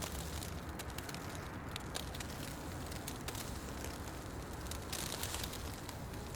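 Fire burning in a fireplace: a steady hiss with frequent small crackles and pops scattered through it, and a brief louder rush of hiss about five seconds in.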